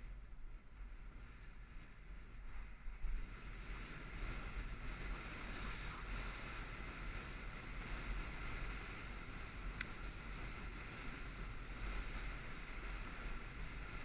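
Steady wind rushing over the microphone of a moving action camera, a noisy rush with a deep low rumble underneath.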